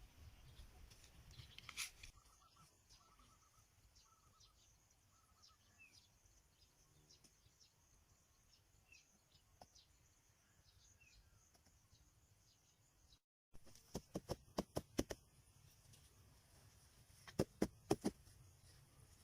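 Faint outdoor ambience with scattered small bird chirps. After a sudden cut, there is a quick run of about six sharp knocks and then about four more near the end.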